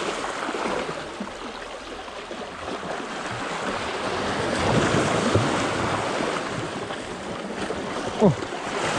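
Small sea waves splashing and washing over shoreline rocks, swelling and easing, with wind on the microphone. A short, loud gliding tone sounds near the end.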